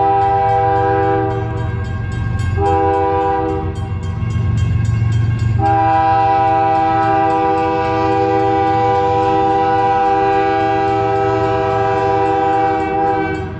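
Nathan K5HL five-chime air horn on a CSX freight locomotive sounding the grade-crossing signal. A long blast ends about a second in, a short blast comes near three seconds, then a final long blast is held for about seven seconds. The diesel engine rumbles low underneath.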